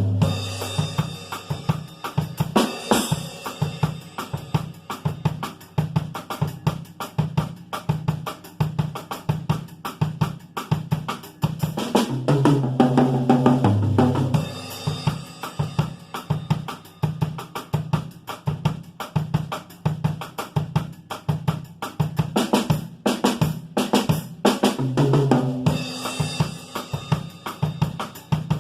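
Drum kit played in a steady groove: kick drum, snare, hi-hat and cymbals, with low held bass notes underneath that swell about halfway through and again near the end.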